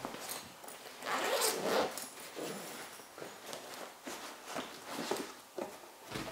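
Zip on a fabric gym bag pulled open, then rustling and light knocks as kit and a plastic bottle are packed into the bag.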